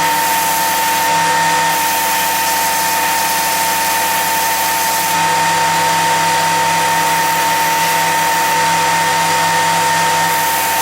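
Belt sander running steadily with a constant high whine, its coarse-grit belt sanding the trail edge of a wooden boomerang.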